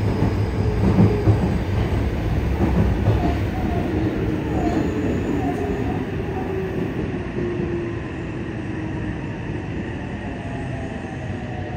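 Running noise inside a Yokohama Municipal Subway 3000R car: a loud, steady rumble of wheels on rail that slowly gets quieter, with a few short wheel squeals about four to six seconds in. Near the end a thin whine from the Mitsubishi IGBT-VVVF traction equipment falls in pitch.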